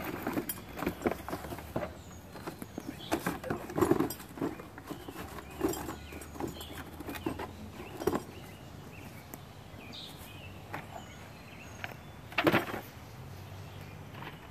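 Handling noise from a cardboard box and a chainsaw being lifted out of it: scattered rustles, scrapes and knocks, with a louder rustle and knock near the end.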